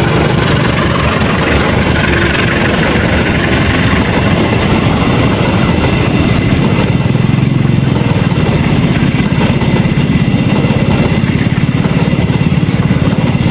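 Diesel-electric locomotive engine running steadily, with a dense low throb.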